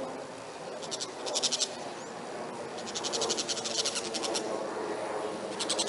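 Rapid high-pitched chattering trills from an animal, in four bursts; the longest runs about a second and a half in the middle. Steady low background noise lies underneath.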